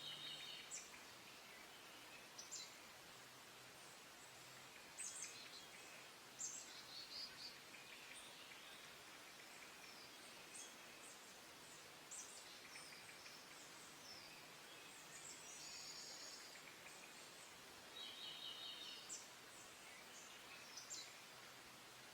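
Small songbirds calling faintly in the spring woods: scattered short, high chirps, with a rapid stuttering trill at the start and again near the end, over a steady low hiss.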